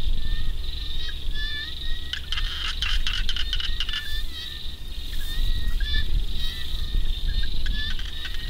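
Frogs and insects calling together: a steady high trilling with short, repeated croaking calls over it.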